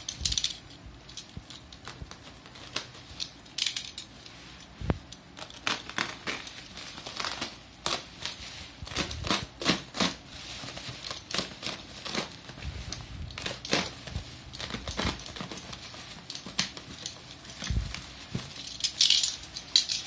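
A shipping package being opened by hand: crinkling, rustling packaging with scattered clicks and knocks of cardboard being handled, and a louder rasp near the end.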